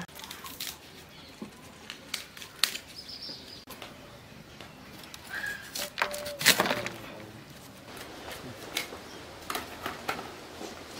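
Cauliflower leaves and stalk being snapped, torn and rustled off the head, then cut against a curved iron blade: a run of crisp snaps and cracks, the loudest about six and a half seconds in.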